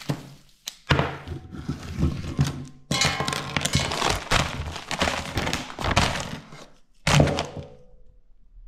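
Gear being handled and packed: thunks and rustling as items are put away, in three short stretches that each start abruptly.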